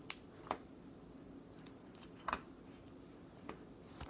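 A few light, sharp taps and clicks on a hard tabletop from a hand handling a slime tub, spaced irregularly, with the loudest near the end.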